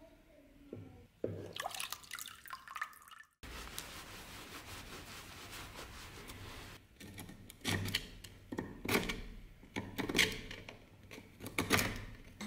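Water sloshing and dripping as a hand lifts the rusty axe head from a pot of warm soda water, the neutralizing bath after the rust remover, followed by a cloth rubbing it dry and sharp handling clicks.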